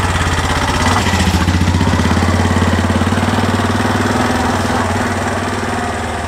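Tuk-tuk (auto-rickshaw) engine running as the three-wheeler passes close by and drives off; its note drops a little about a second in as it goes past, then slowly fades as it pulls away.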